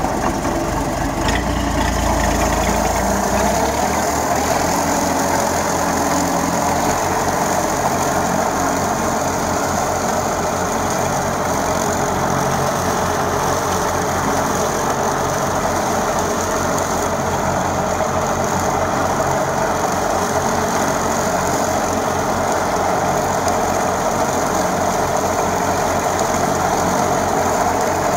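Small Holder A55 diesel tractor running steadily at working revs, driving a PTO-powered Röll Compact double rotary mulcher that is cutting grass. A deep low rumble is added for the first few seconds.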